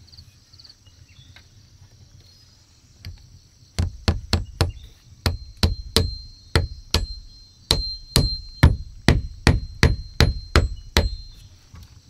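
A wooden stick knocking a metal blade wedged between the poles of a wooden wall, about twenty sharp knocks at two or three a second, starting about four seconds in.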